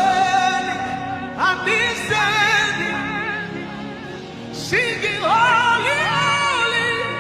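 Slow worship music: a voice sings long wordless held notes with wide vibrato over a steady sustained backing. A new phrase swells in about a second and a half in and again near five seconds.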